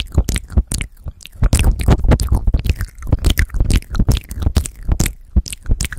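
Wet mouth sounds right against a handheld recorder's microphones: a rapid, uneven run of lip smacks, tongue clicks and licks on the mic.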